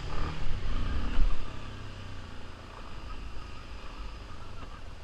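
Yamaha Lander 250 single-cylinder motorcycle engine revving and changing pitch for about the first second and a half, then running more quietly and steadily.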